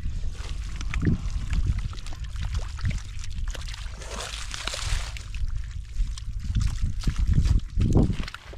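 Shallow wetland water sloshing and splashing as it is worked by hand, with a stretch of pouring, trickling water about four seconds in, over a steady low rumble.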